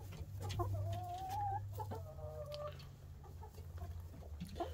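Chickens calling: two drawn-out clucking notes, the first slightly rising, the second falling, over a steady low hum.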